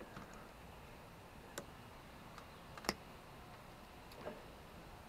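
Diagonal cutters clicking and snipping at a lawn mower's recoil pull cord: a few sharp, separate clicks, the loudest about three seconds in.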